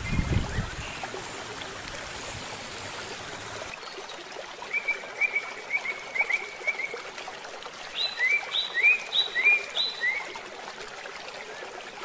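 Steady rush of a small mountain stream, with a few low bumps at the start. About four seconds in the sound changes abruptly to a lighter water hiss, over which a songbird sings a run of short repeated chirps, then a faster series of alternating high and low notes.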